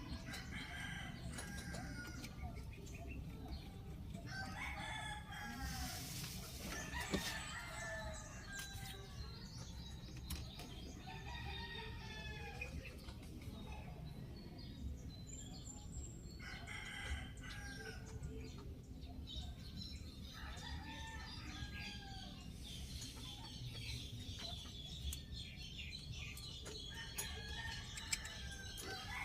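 Roosters crowing, several separate calls spread through the stretch over a steady low background rumble.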